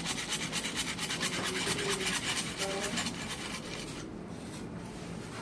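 Rapid, rhythmic rasping of a hand tool worked on pipe, several strokes a second, stopping about four seconds in.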